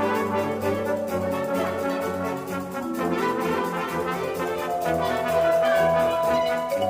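Junior high school wind band playing sustained brass-led chords over a steady percussion pulse. The chord changes about halfway through, and a high held note enters after that and carries on almost to the end.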